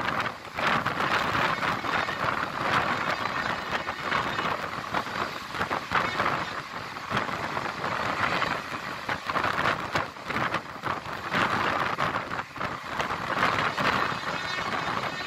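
Passenger train running at speed, heard from inside the coach by the window: a continuous rushing noise of wheels on rail and moving air, full of fast rattling clatter.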